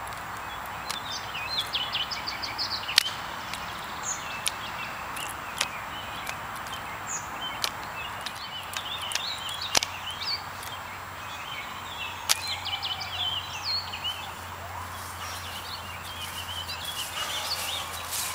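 Songbirds chirping over steady outdoor background noise, broken by a few sharp knocks, the loudest about 3, 10 and 12 seconds in, as the color guard practice rifle is spun and slapped into the hands.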